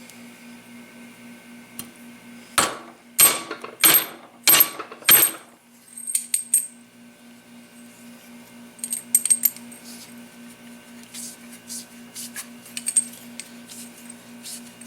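Metal coilover shock parts being handled on the bench: four sharp metallic knocks in quick succession a few seconds in, then scattered lighter clinks and ticks, over a steady low hum.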